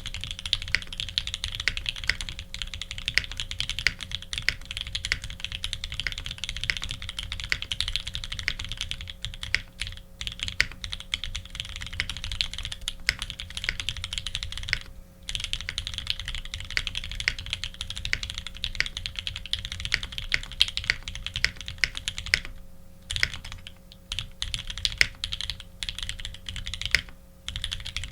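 Continuous fast typing on a custom mechanical keyboard with lubed linear H1 switches on an aluminium plate and GMK doubleshot keycaps, giving a dense run of soft key clacks with a few short pauses.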